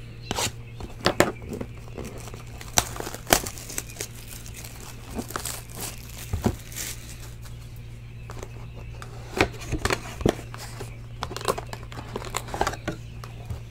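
A Panini Absolute Basketball hobby box being handled and opened: crinkling and tearing of its wrapping, with scattered sharp taps and rustles at irregular moments, over a steady low hum.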